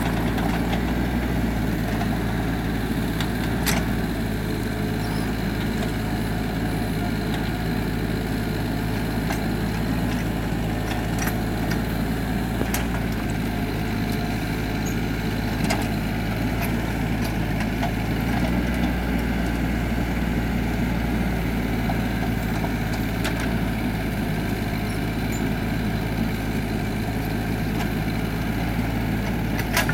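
Mini excavator's diesel engine running steadily under load as the bucket digs and prises at hard lateritic soil, with a few sharp knocks from the bucket on the hard ground.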